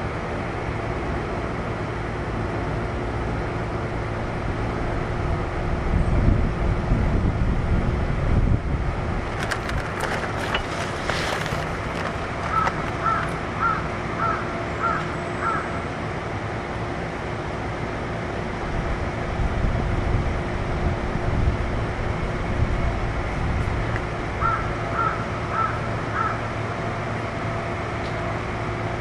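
Kintetsu 1233 series electric train standing at a station stop, its onboard equipment giving a steady low hum, with a louder low rumble for a few seconds about six seconds in and again near twenty. A run of about six short high notes comes about halfway through, and a shorter run near the end.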